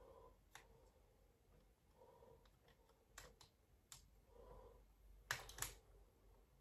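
Near silence broken by faint small clicks of a screwdriver working on a plastic ceiling bulb holder, a louder pair of clicks near the end.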